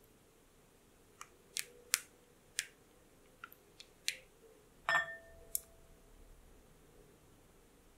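Silicone spatula clicking and tapping against a glass mixing bowl several times while stirring thick chocolate batter. About five seconds in, a sharper knock sets the glass bowl ringing briefly as an egg is cracked on it, followed by one more click.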